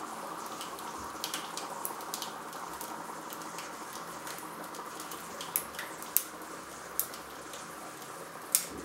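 Dry ice bubbling and fizzing in hot soapy water, a steady hiss under a growing mound of foam. Scattered sharp pops and clicks come through, more often in the second half.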